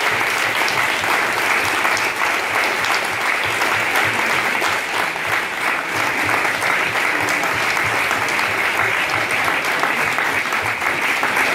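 A room full of people applauding: dense, steady clapping by many hands.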